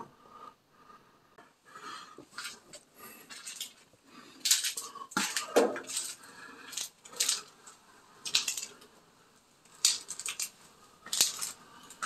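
Scattered metallic clinks and rattles at irregular intervals, like metal things knocked and handled.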